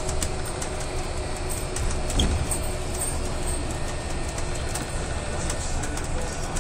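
Cabin noise of an Alexander Dennis Enviro 350H hybrid bus on the move: a steady low rumble with faint steady tones, and a single knock about two seconds in.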